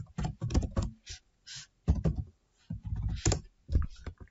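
Typing on a computer keyboard: an irregular run of key clicks in short clusters with brief pauses.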